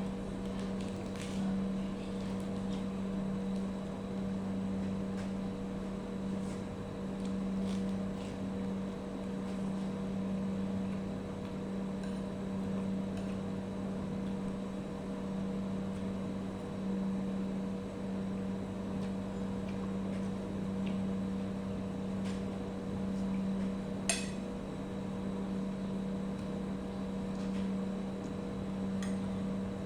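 A steady low hum from a running appliance or motor, with a few faint light clinks of tableware and one sharper clink about 24 seconds in.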